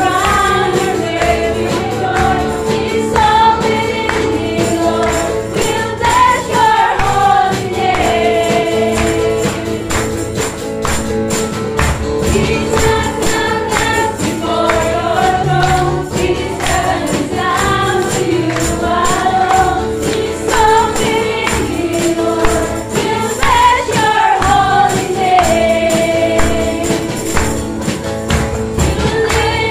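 Live worship song: voices singing a melody over a drum kit and guitar, with hand tambourines jingling and struck in rhythm.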